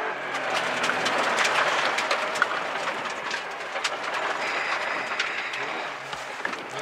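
Rally car driving fast on a gravel stage, heard from inside the cabin: a steady rush of tyre and gravel noise, with loose stones clicking and pinging against the underbody and the engine low beneath it.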